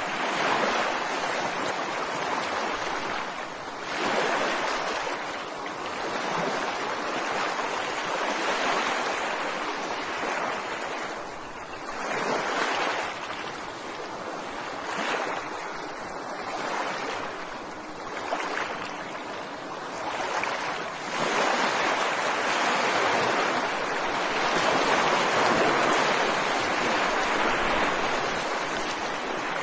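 Ocean surf: waves breaking and washing in a continuous hiss that swells and falls back every few seconds, with a longer, fuller surge in the last third.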